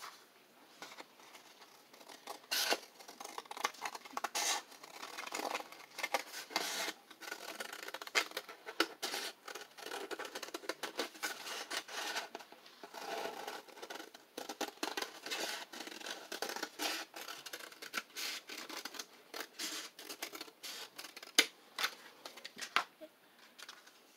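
Scissors cutting a paper plate: a long, irregular run of short crisp snips, with the stiff paper crackling as it is turned.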